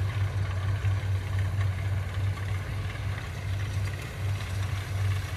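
Kubota DC70 combine harvester's diesel engine running steadily under load as the machine cuts lodged, flattened rice, a constant low drone with the whir of the cutting and threshing gear.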